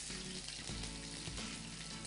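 Stuffed bitter gourds (karela) sizzling as they fry in a pan.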